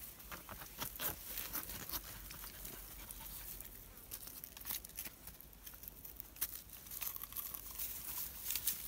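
Faint rustling and scraping as a person climbs down over rough rock through dry grass, with trainers scuffing and hands gripping the stone, and many small scattered clicks.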